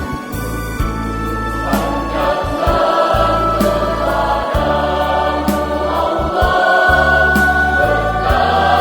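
A choir singing a hymn in parts, with instrumental accompaniment holding sustained low bass notes.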